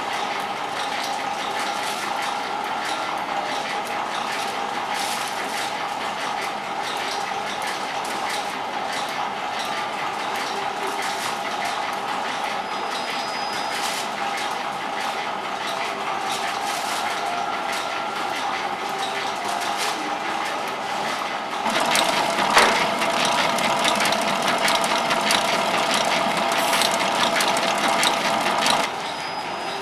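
Steady machine hum of bakery equipment with light ticking. About two-thirds of the way in, a large planetary mixer's wire whisk starts beating cream in a steel bowl, louder than the hum, with a knock as it starts. It stops shortly before the end.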